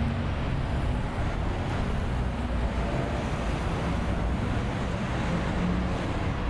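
Steady outdoor street noise: road traffic running along with a low rumble of wind on the microphone.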